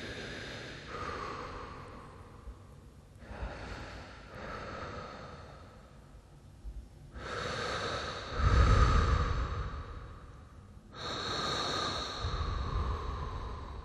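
Slow, deep breaths in and out, about four long breaths, each swelling and fading; the third is the loudest, with a heavy rush of air.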